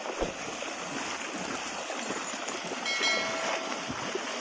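Water splashing and sloshing as a pair of bullocks and their loaded cart wade through a shallow stream, with soft knocks of hooves and wheels. About three seconds in, a brief steady tone with several overtones rings out.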